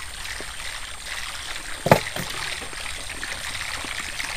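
Water trickling and splashing softly around a small wooden canoe, with one sharp knock about two seconds in.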